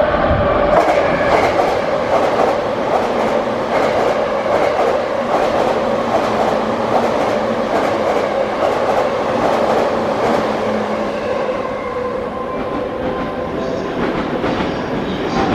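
JR East E353-series limited express electric train running through the station at speed. Its steady running noise carries a long run of clicks from the wheels passing over rail joints, which thins out after about ten seconds as the train goes by.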